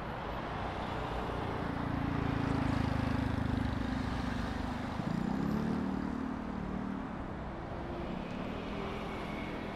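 City street traffic: cars passing, with engine sound swelling about two seconds in and another engine rising in pitch about five seconds in.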